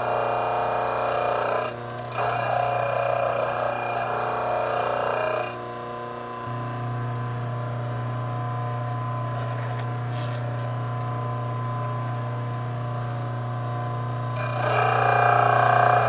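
A drill bit in a collet block is ground against the motor-driven wheel of a four-facet drill bit sharpener, cutting the secondary relief facet. A high ringing grinding tone sits over the motor's steady hum. About five and a half seconds in, the grinding stops and only the motor hum is left; the grinding starts again near the end.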